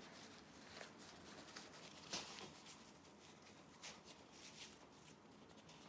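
Faint, irregular rustling and rubbing of a paper towel wiping glue from around steel rods and a wooden post, with a louder rub about two seconds in.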